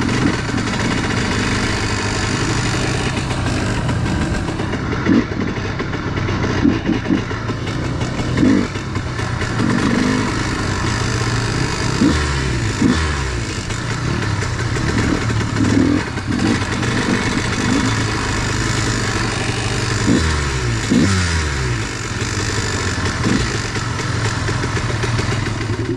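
Dirt bike engine running under way on a gravel road, revs rising and falling through throttle and gear changes, with a steady rough rattle of ride noise underneath.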